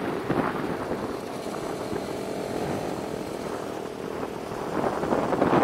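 Motorcycle engine running steadily at an easy pace, a low even drone with little wind noise.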